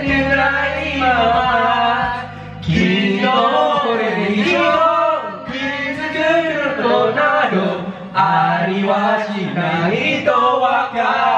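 Young men singing into karaoke microphones over a backing track, the voices loud and amplified through the room's speakers.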